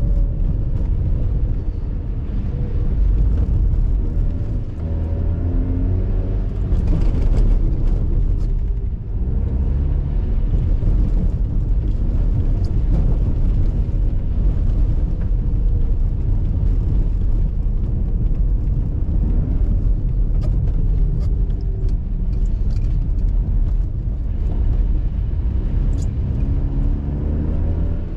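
Mazda RX-8's twin-rotor Renesis Wankel engine heard from on board during track driving, its note repeatedly climbing in pitch and dropping back through gear changes and corners, over heavy low road and wind rumble. Brief dips in loudness come near five and nine seconds in.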